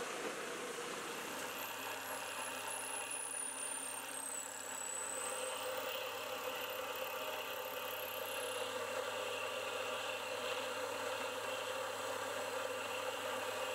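CNC milling machine spindle running and its cutter milling an aluminium part, a steady mechanical whine over a constant hiss. A faint high whistle slides down in pitch between about one and five seconds in.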